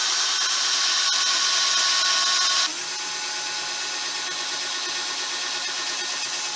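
Electric drill boring the screw pilot holes for a brass cup caster into a wooden table leg. The motor runs loud and steady, then about two and a half seconds in it slows to a lower pitch and runs more quietly until it stops near the end.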